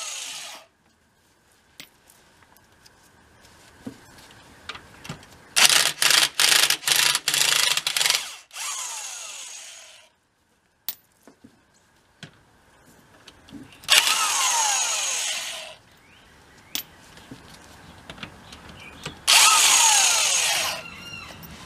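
Electric impact wrench with a 3/4-inch socket run in bursts on the axle-shaft flange nuts of a deuce-and-a-half truck's rear hub, loosening them. About six seconds in come a string of short trigger blips, and later two longer runs of about two seconds each, with small metal clicks in the pauses.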